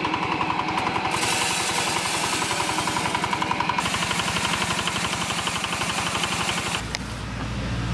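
Diesel engine chugging with a fast, even beat while driving a maize crusher that grinds dry corn kernels, a loud rattling grind over the engine. Near the end the sound changes abruptly to a steadier, lower hum.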